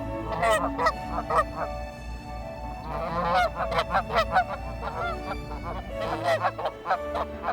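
Canada geese honking: several birds calling in quick runs of honks, with short gaps between the runs.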